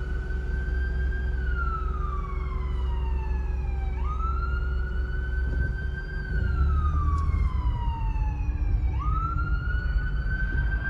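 Police siren on a slow wail: the pitch jumps up, holds, then glides down, starting over about every five seconds. It is heard from inside a car, over the low rumble of the car.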